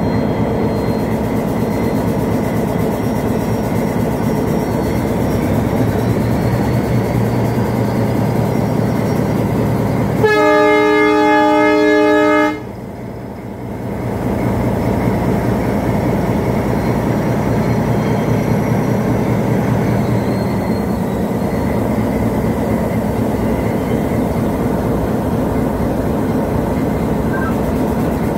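WDS6 diesel shunting locomotive running steadily along the track, with its engine drone and rail noise. About ten seconds in, a locomotive horn sounds one loud, steady blast lasting a little over two seconds.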